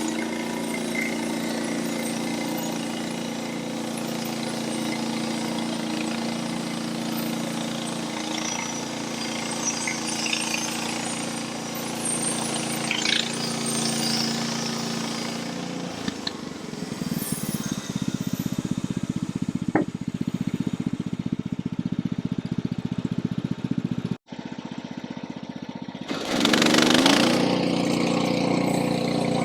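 Norwood portable bandsaw sawmill running on its engine, steady at first, then rougher and louder from about halfway through as the blade takes a cut through a log. The sound breaks off for a moment near the end and comes back with a loud rush of noise.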